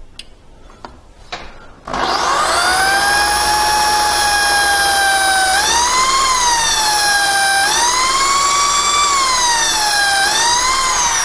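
Electric drill with a small bit drilling a pilot hole through a metal rack panel at a centre-punched mark. The motor starts about two seconds in with a rising whine, then runs on, its pitch rising and dipping several times as the speed changes, and begins to fall near the end. Before it starts there are a few faint clicks of handling.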